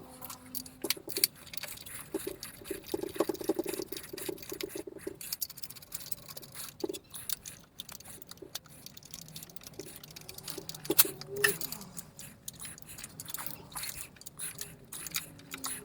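Hand tools and metal engine parts clicking and clinking during assembly work, with a quick run of rattling clicks from about two and a half to five seconds in and a sharper knock about eleven seconds in.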